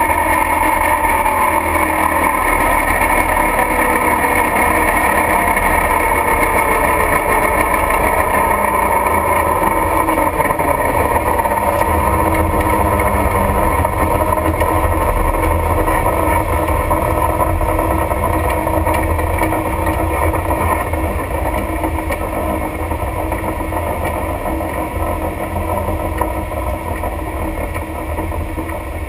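600 cubic inch big-block V8 of a Camaro race car running steadily, heard from inside the cockpit, with no sharp revving. It grows a little quieter over the last several seconds.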